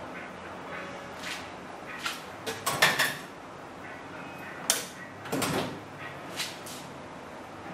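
Irregular knocks and clunks of tools and parts being handled on a workbench, the loudest a pair about three seconds in, followed by several smaller ones.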